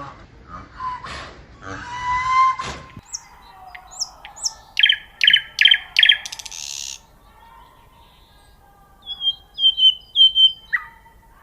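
A few honking calls, then a cut to a small bird chirping. It gives quick high downward chirps, then a run of four loud, sharp chirps, then softer chirps near the end.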